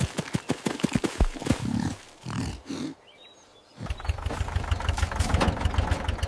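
Cartoon sound effects: a run of quick clicks and short low animal-like sounds, a brief pause, then an engine, taken here for the tractor's, starts about four seconds in and runs with a fast low chug.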